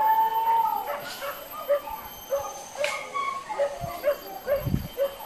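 Hunting dogs baying on a wild boar chase: one long drawn-out howl to begin, then a run of short high yelps, about two or three a second.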